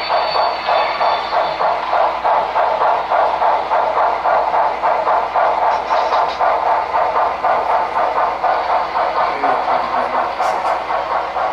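Sound-equipped HO-scale model of Texas & Pacific 2-10-4 steam locomotive #610 (Broadway Limited Paragon 3) working under way. Its onboard speaker plays a steady, even rhythm of steam exhaust chuffs.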